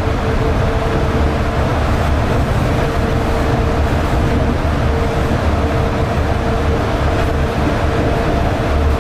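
Yurikamome rubber-tyred automated guideway train running at steady speed: an even, continuous low rumble with a constant humming tone over it.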